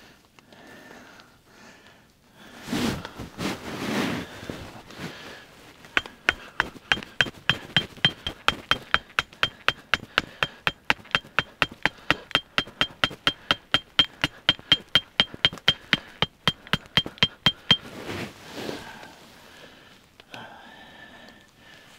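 Rapid, even hammering on metal, about four ringing blows a second, that starts a few seconds in and stops a few seconds before the end, preceded by two heavier dull thuds. The blows sound like something being driven in until it sits firm.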